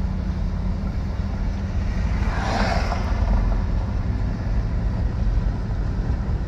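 Steady engine and road rumble of a moving car, heard inside the cabin, with a brief swell of rushing noise about two and a half seconds in.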